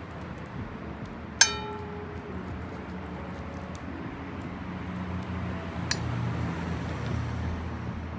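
Dishware clinking: one sharp clink that rings briefly about a second and a half in, and a second, fainter click near six seconds. A steady low hum runs underneath.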